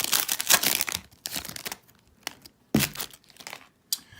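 Plastic trading-card pack wrapper crinkling and tearing open: a dense crackle for about the first second, then scattered rustles and a few sharp clicks as the cards are pulled out.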